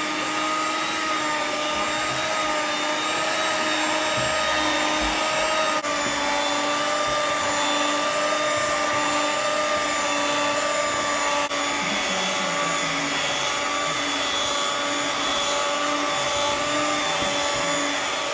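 Handheld electric mixer running at a steady speed, a continuous motor whine as its beaters work through thick cake batter in a plastic bowl.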